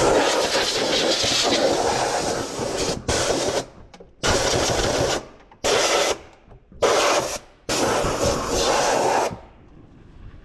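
Compressed-air blow gun hissing in repeated bursts, about six, the first about three seconds long and the rest shorter, each cut off sharply: blowing out a fuel rail to clear a suspected obstruction.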